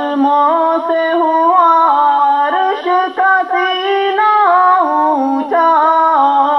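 A young man's solo voice singing an Urdu naat with no instruments: long held notes, each ornamented with quick turns in pitch. The line climbs to a higher phrase about halfway through and falls back near the end.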